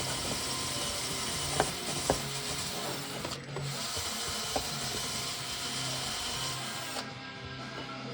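Hand tools working on motorcycle engine parts: a few sharp metallic clicks and knocks over a steady hiss.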